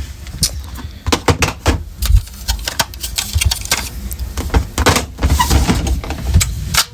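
Handling noise: irregular clicks, knocks and rattles of plastic smoke alarm units being picked up, moved about and set down.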